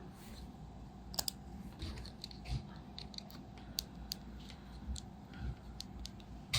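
Small plastic clicks at uneven intervals, about a dozen in all, like buttons being pressed and small plastic parts handled, over a steady low hum.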